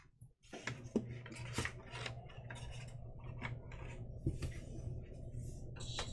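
Unboxing handling on a tabletop: an irregular run of light taps, clicks and rubs as a metal stencil ruler and its packaging are handled, moved and set down, over a faint steady hum.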